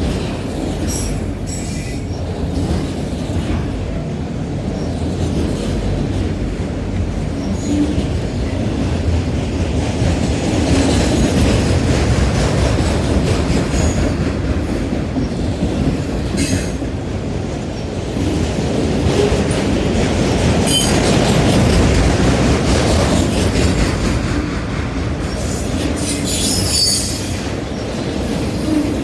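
Cars of a CSX manifest freight train rolling past on the rails: a steady low noise of steel wheels on track, with a few brief high-pitched squeals, the longest near the end.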